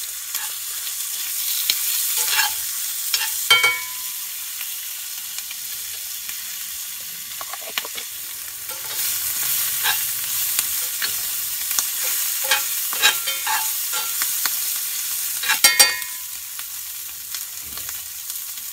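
Sausage, peppers and green onion sizzling in a cast-iron skillet while being stirred, the utensil scraping and knocking against the pan. Two sharper ringing knocks come about three and a half and fifteen and a half seconds in.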